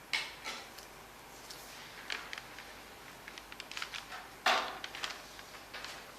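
Scissors cutting cardstock: irregular snips and paper crackle, with a quick run of small snips a little before the loudest snip about four and a half seconds in.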